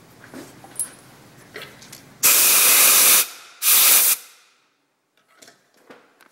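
Two blasts of compressed air from a blow gun, the first about a second long and the second shorter, a little over a second later, blowing brass chips off a freshly cut gear. A few light clicks come before and after.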